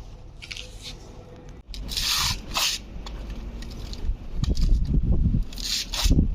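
Joint-filling material being applied into a cracked building joint, heard as a few short hissing, scraping bursts, with wind buffeting the microphone in the second half.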